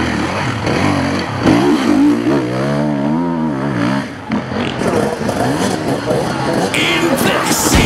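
Enduro motorcycle engine revving hard through a special test. Its pitch climbs and drops several times, with a clear rise and fall in the middle.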